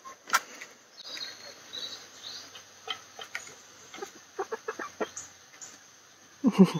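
Chickens clucking softly in a cluster of short calls, with a few high chirps about a second in and a louder call near the end.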